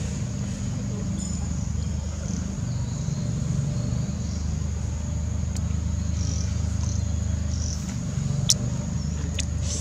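Steady low rumble of a running motor, with a faint steady high-pitched drone over it and a few sharp clicks near the end.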